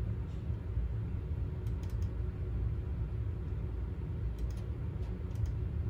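Steady low hum with a handful of faint, scattered clicks as a computer is operated by hand.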